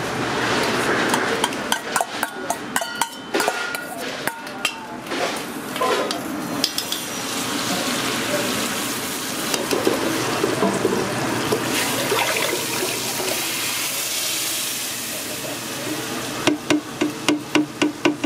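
Kitchen cooking sounds: scattered clinks and knocks of utensils, then a steady hiss of butter bubbling in a stock pot. Near the end, rapid even knocks, about six a second, as hot sauce is stirred into the butter against the side of the pot.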